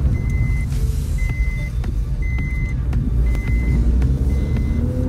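Maruti Suzuki Dzire fitted with an aftermarket exhaust, driving, heard from inside the cabin as a deep, steady drone. Over it a high beep sounds about once a second, each beep about half a second long.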